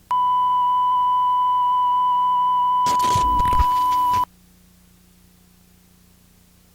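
A steady, high electronic beep tone sounds for about four seconds. A burst of harsh static joins it in its last second or so, and both cut off abruptly together, leaving only a faint low hum.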